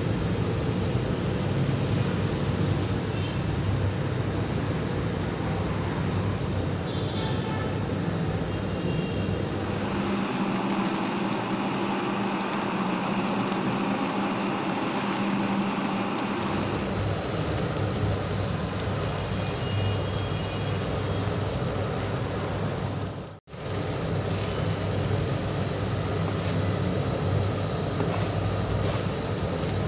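Steady rumbling background noise with a low hum, unbroken except for a sudden dropout about 23 seconds in.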